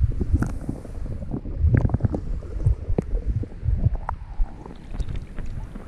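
Low wind rumble on the microphone, with irregular thumps and sharp clicks scattered through it.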